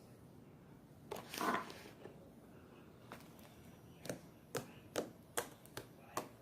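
Hands handling mixed slime: a squish about a second in, then a run of sharp clicks and pops roughly every half second.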